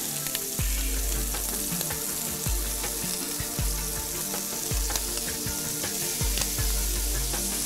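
Prawns sizzling in hot oil in a frying pan as they are turned over with a metal spatula, with light clicks of the spatula against the pan. Soft background music with low bass notes runs underneath.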